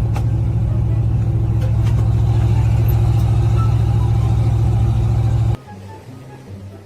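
An engine or motor running loud and steady at an even pitch, cutting off abruptly about five and a half seconds in.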